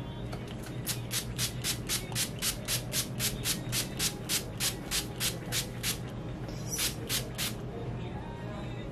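Fine-mist spray bottle of detangling spray pumped rapidly, about four short sprays a second for some five seconds, then a brief pause and three more sprays.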